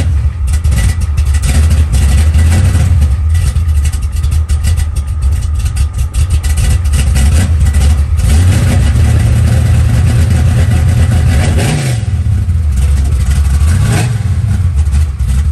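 Carbureted car engine running loud through open exhaust cutouts with a deep, steady rumble. Its speed rises about eight seconds in and falls back about four seconds later, with a shorter rev near the end.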